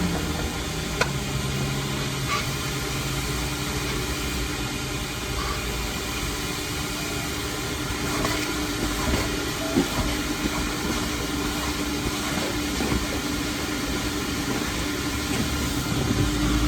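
Vacuum cleaner running steadily with a constant hum and hiss, with a few light clicks and knocks as it works.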